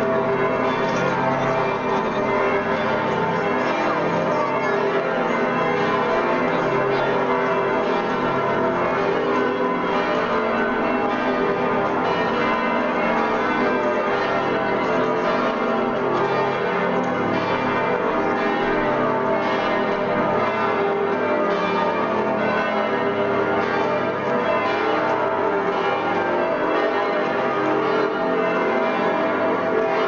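Church bells of Munich's Frauenkirche cathedral ringing continuously, several bells sounding together and overlapping without a break. They are rung in mourning for the death of former Pope Benedict XVI.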